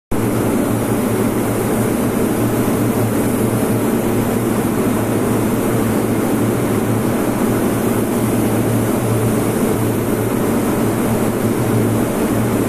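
Steady, loud machine drone: a low motor hum under a wide hiss, unchanging even as spray painting starts and stops.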